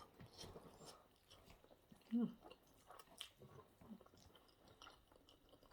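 Someone chewing a mouthful of spaghetti bolognese: soft wet smacks and little mouth clicks, with a brief hum about two seconds in.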